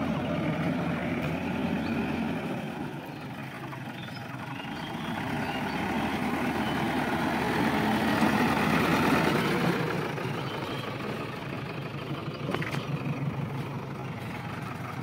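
JCB 3DX backhoe loader's diesel engine running as the machine drives. It grows louder as the machine passes close, about halfway through, then drops back.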